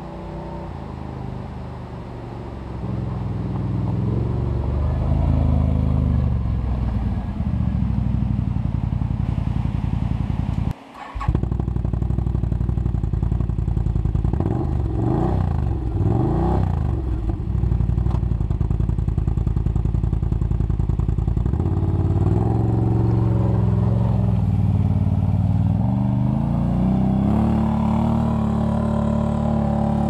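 Can-Am Outlander ATV engine running and revving as the quad approaches and passes close by, its pitch rising and falling several times and climbing again near the end. The sound drops out abruptly for a moment about eleven seconds in.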